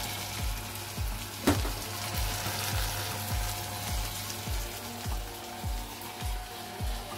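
A crepe frying in a non-stick pan, with a steady, gentle sizzle. There is one sharp knock about a second and a half in, and background music with a steady beat runs underneath.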